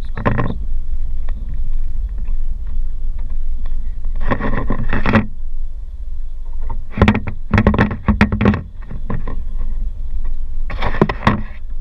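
Vehicle driving slowly on a sandy dirt track, heard from inside: a steady low rumble with four loud bouts of clattering and rattling as it jolts over bumps, the heaviest run of knocks around seven to eight seconds in.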